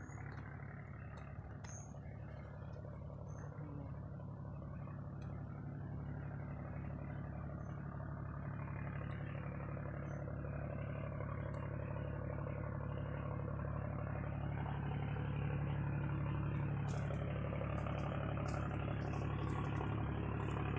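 An engine running steadily at an even speed, growing gradually louder, with a few light clicks near the end.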